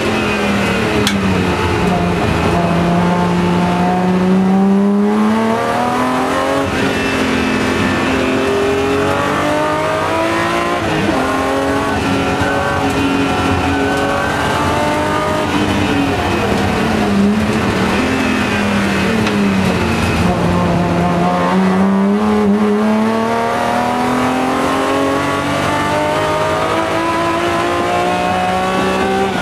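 BMW M3 race car's engine, heard from inside the cabin, revving up under acceleration and dropping back as it slows, over and over through the lap.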